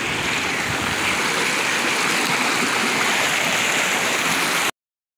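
Shallow mountain stream running over rocks along a grassy bank: a steady, even rush of water that cuts off abruptly about four and a half seconds in.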